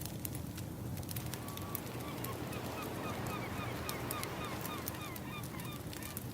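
Crackling wood fire with scattered sharp pops over a steady wash of ocean waves. From about a second and a half in, a rapid run of short chirping calls, about four a second, sounds over it and fades near the end.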